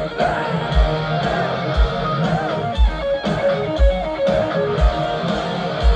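Heavy metal band playing live through a big PA: distorted electric guitars over a heavy drum beat that lands about once a second.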